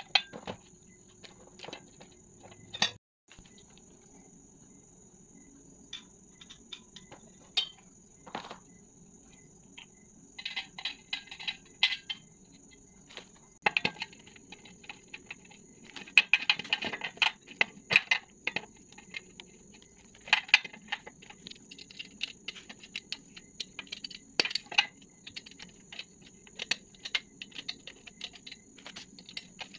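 Thin metal tubes of a mirror stand's frame being handled and fitted together by hand: irregular clicks, knocks and short bursts of clattering.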